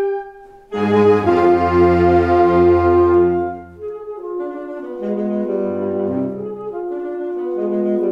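Saxophone ensemble playing: a held chord cuts off, and after a short pause a loud full chord with deep bass sounds about a second in and holds for about three seconds. It then drops to a softer passage with moving lines.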